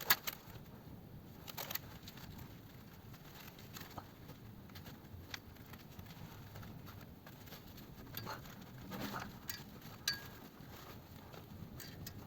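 Faint, scattered small clicks and light knocks, with a sharper click about ten seconds in: someone moving about and handling things while looking for locking wire.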